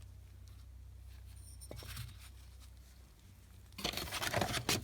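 A low steady hum, then about a second of rustling and scraping near the end as engine parts are handled on the workbench.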